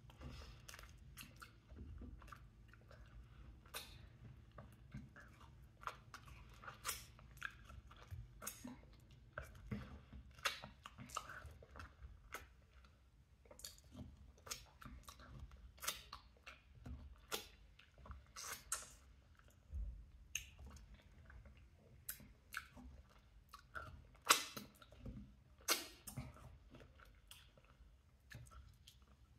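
A person biting and chewing mango pieces close to the microphone: faint, irregular mouth clicks and smacks, a few a second, with one sharper click near the end.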